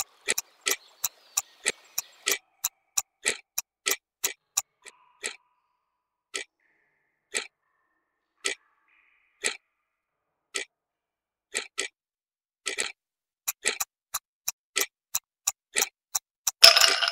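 Clock-ticking sound effect for a countdown timer: sharp ticks about three a second, thinning to about one a second in the middle and quickening again. A short, loud noisy burst comes near the end.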